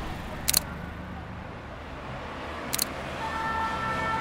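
Ricoh GR compact camera shutter clicking twice, each a quick double click, over the low hum of city street traffic. A steady high whine with several pitches starts about three seconds in.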